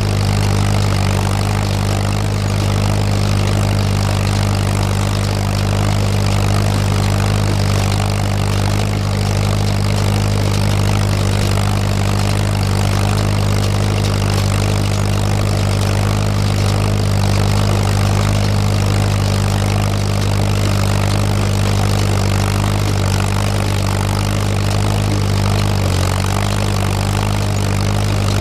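Tractor engine running steadily at an even speed, a loud, constant drone.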